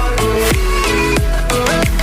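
Electronic pop music with a heavy bass beat and repeated falling synth sweeps, about two a second; no singing.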